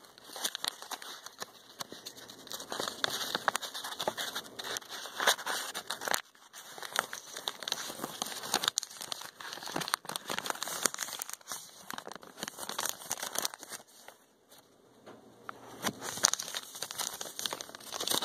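Foil wrapper of a Pokémon trading-card booster pack crinkling and tearing as it is worked open by hand, in fitful bursts of crackling with brief lulls about a third of the way in and again near the end.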